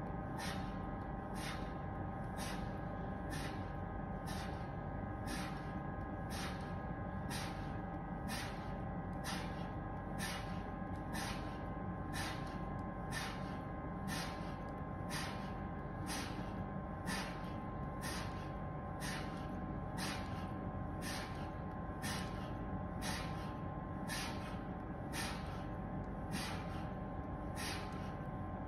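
A man breathing hard and fast in quick, even breaths, a little more than one a second, while straining to press a 32 kg kettlebell overhead, over a steady faint hum.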